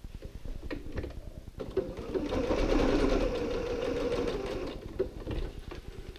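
Domestic sewing machine stitching in one short run of about three seconds, sewing a small loop of elastic onto the corner of a fabric panel. A few sharp clicks come just before and after the run.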